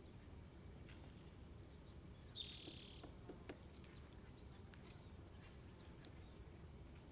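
Faint bird calls and chirps over quiet outdoor background noise, with one louder, harsh call about two and a half seconds in.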